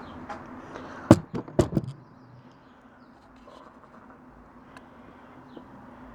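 A quick run of four or five sharp clicks and knocks about a second in, like hard parts being handled, then a faint steady low hum with a few light ticks.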